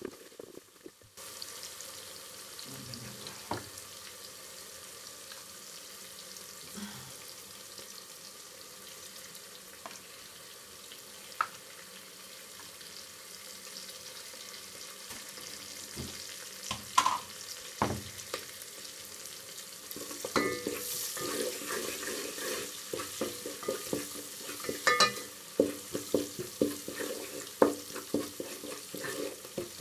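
Chopped onions sizzling in hot oil in a metal pot, starting about a second in. A spoon stirs and knocks against the pot now and then, and in the last third the scraping strokes come quickly one after another.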